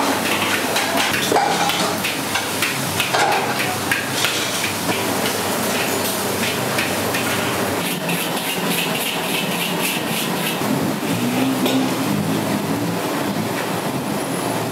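Metal spatula scraping and clanking against a wok in rapid repeated strokes as noodles are stir-fried, over a steady background roar.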